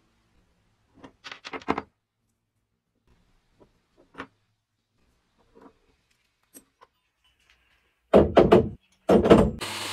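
Steel tape-gun parts clinking as they are handled on a wooden bench: a quick cluster of clicks about a second in, and another click around four seconds. Near the end come two loud bursts of handling noise inside a sandblast cabinet, then the steady hiss of the sandblaster starting just before the end.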